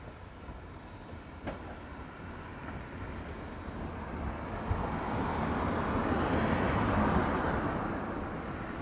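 An unseen vehicle passing by: a broad rushing noise that builds over several seconds, peaks about three-quarters of the way in, then begins to fade.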